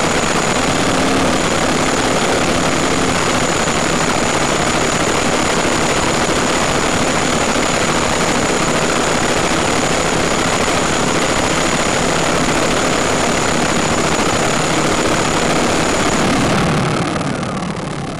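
Quadcopter's electric motors and propellers running steadily at close range, a dense rushing drone with a thin high whine above it. Near the end the whine stops and the sound falls away as the motors spin down with the craft down in the grass.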